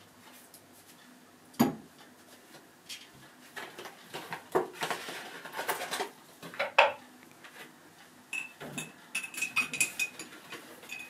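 Dishes and cutlery clattering, with a sharp knock about one and a half seconds in. From about eight seconds a teaspoon clinks quickly and repeatedly against the side of a mug as a drink is stirred.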